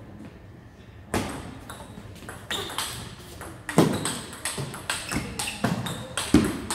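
Table tennis rally: a celluloid-type ball clicking in quick alternation off the rackets and the table. The clicks start about a second in and come faster and louder near the end.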